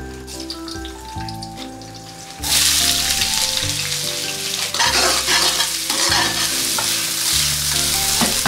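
Sliced celtuce (stem lettuce) hits a hot oiled honeycomb stainless-steel wok about two and a half seconds in and sizzles loudly while being stir-fried. Near the end the vegetables are tossed in the pan.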